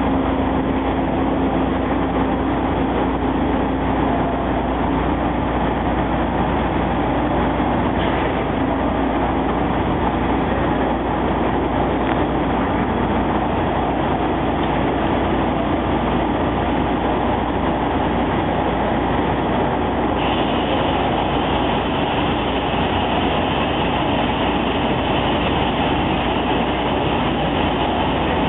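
Automatic double-head vertical glass-drilling machine running steadily. A higher-pitched band of sound joins about twenty seconds in.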